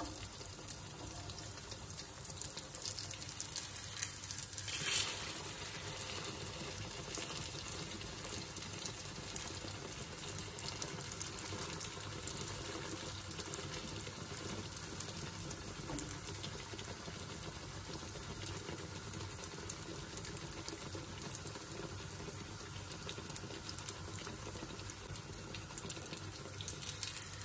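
Batter frying in hot oil in a pan: a steady sizzle with fine crackles and pops throughout, briefly louder about five seconds in.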